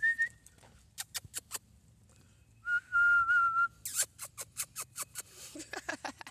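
A person whistling: a short high note at the start, then a louder steady note held for about a second near the middle, with sharp clicks before and after it.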